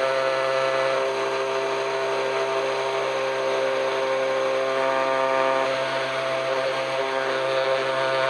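CNC milling spindle running steadily as its small engraving bit cuts traces into a copper-clad circuit board, a constant machine tone over cutting noise.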